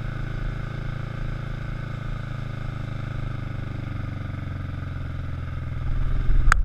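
Kawasaki EN500's parallel-twin engine running steadily as the motorcycle rides along, getting a little louder near the end, with a sharp knock just before the end.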